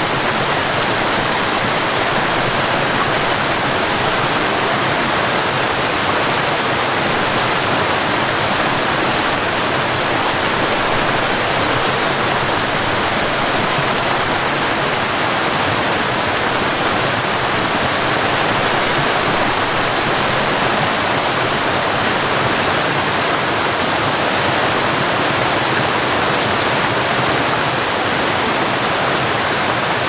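A cascading waterfall tumbling down rock ledges: a steady, unbroken rush of falling and splashing water.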